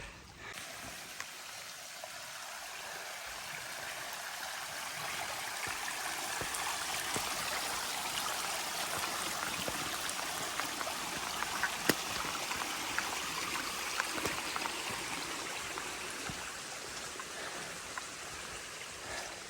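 Rushing water of a flowing stream, a steady wash that swells slowly to its loudest midway and then eases off, with a few faint clicks.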